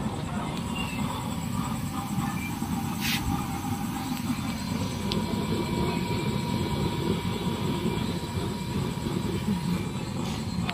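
Used-oil burner stove burning with a steady low rumble, with one sharp click about three seconds in.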